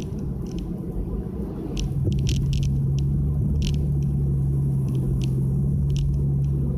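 Nissan Fuga 350GT's 3.5-litre V6 and one-off quad exhaust heard from inside the cabin while driving. About two seconds in it gets louder and settles into a steady drone at constant revs, with light clicks and rattles from the cabin.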